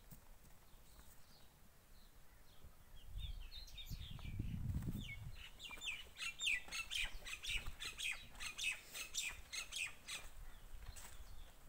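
Small birds chirping in quick, short, high notes, busiest in the second half. A low rumble comes about three to five seconds in.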